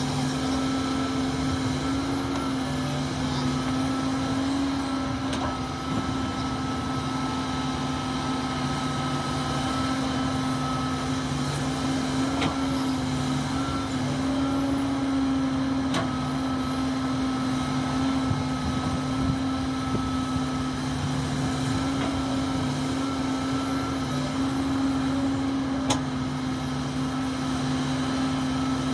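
Heavy diesel engine of a Komatsu PC450 excavator running steadily at working speed, a constant drone with a steady hum, and a few faint knocks.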